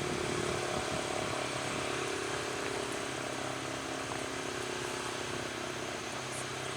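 Sentry 7V8 outdoor warning siren in its long wind-down, the rotor coasting with a low steady drone that slowly fades. The long coast-down is taken as a sign that the siren has good bearings.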